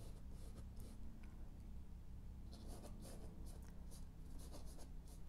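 Paintbrush stroking and scrubbing oil paint onto the painting surface: soft, irregular scratchy brush strokes, over a faint low steady hum.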